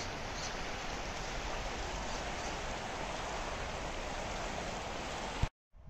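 Steady rushing of running water, even and unbroken, that cuts off suddenly with a click near the end.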